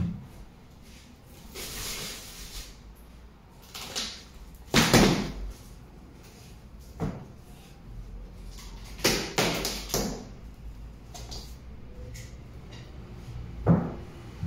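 A cardboard shipping box being opened and handled: a series of separate rips, scrapes and thumps, the loudest about five seconds in, with a short knock near the end.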